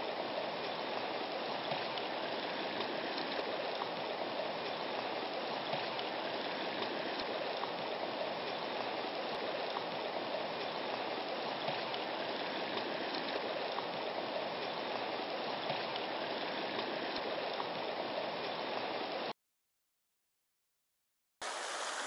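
Shallow mountain stream running over rocks: a steady rush of flowing water. It cuts out to dead silence for about two seconds near the end, then resumes.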